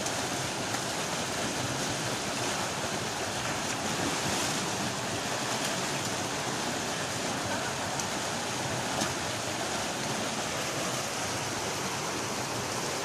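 Water of a waterfall cascade rushing over rock into a pool, a steady full-range rush.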